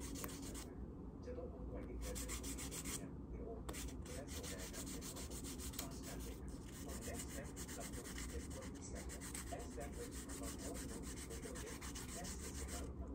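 Fingernails buffed with the blue side of a nail buffer block, rubbed back and forth in quick, continuous strokes.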